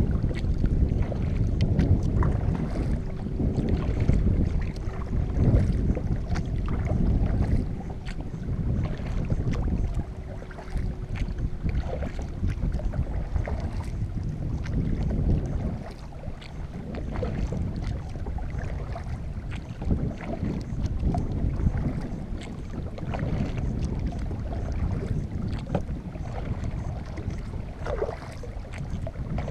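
Wind rumbling on the microphone of a camera mounted on a paddled kayak, rising and falling in gusts, with small water splashes from the paddle strokes.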